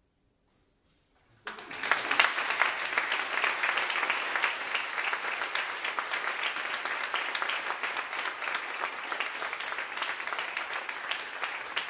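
Near silence for about a second and a half, then an audience breaks into applause that keeps up steadily.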